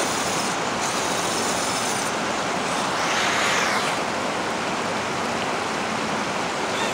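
Steady rushing noise of river water flowing over the rock shoals, swelling briefly about three seconds in.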